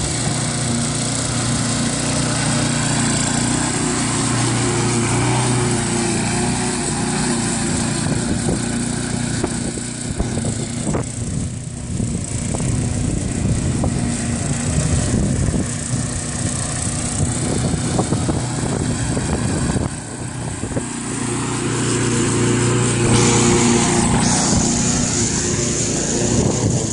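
Walk-behind rotary lawn mower running steadily as it circles the lawn on its own; the engine grows fainter midway as it moves away and louder again near the end as it comes close.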